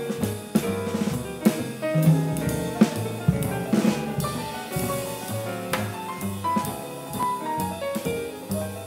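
Jazz combo playing: a Steinway grand piano plays lines of notes over bass and a drum kit keeping time with regular cymbal and drum strokes.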